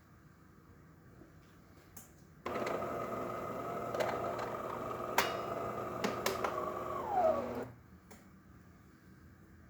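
DeLonghi Magnifica XS super-automatic espresso machine working through its brew cycle: a click, then its internal motor runs steadily with a whine for about five seconds, with a few clicks, and its pitch falls as it stops.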